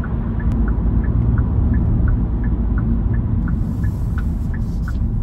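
Turn-signal indicator ticking in an even alternating tick-tock, about three clicks a second, over the steady low rumble of the car's engine and tyres heard from inside a Kia's cabin while turning right.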